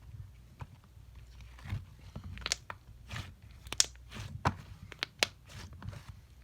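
Slime being squeezed and poked by hand, making irregular crunches and crackles, with a few louder sharp snaps in the second half.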